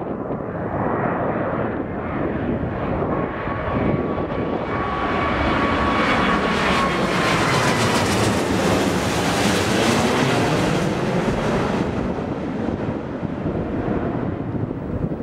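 Boeing 777-200ER airliner's twin jet engines as it passes overhead on landing approach: a rumbling roar that builds to its loudest around the middle and then eases off, with a thin whine that slides down in pitch as the jet goes by.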